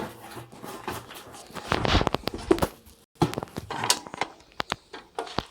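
Handling noises: scattered sharp clicks and knocks, with a stretch of rustling about two seconds in, as parts or packaging are picked up and set down.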